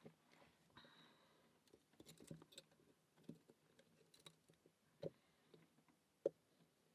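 Faint, scattered clicks and taps of a lock pick and tension wrench, each gripped in pliers, working in a padlock while setting pins. A louder click comes about five seconds in and the sharpest just past six seconds.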